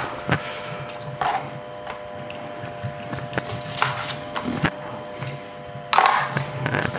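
A knife cutting a raw whole chicken on a cutting board: scattered knocks and taps of the blade against the board as the pieces are trimmed, with a louder flurry about six seconds in.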